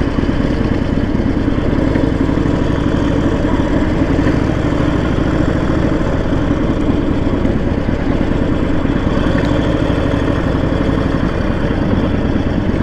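Harley-Davidson Sportster 1200's V-twin engine running steadily while being ridden.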